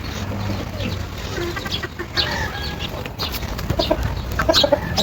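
Chickens clucking in short repeated notes, with other birds chirping, the calls coming thicker near the end.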